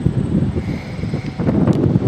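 Wind buffeting the microphone in gusts, a loud, uneven low rumble that grows stronger in the second half.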